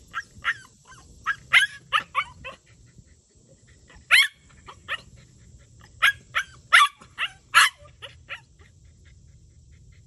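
A small dog barking in short, sharp, high-pitched yaps, about fifteen in irregular bursts with pauses between, at a visiting wild animal it is afraid of.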